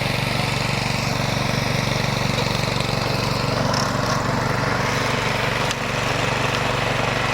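Flail mower's 15 hp Hyundai engine running steadily.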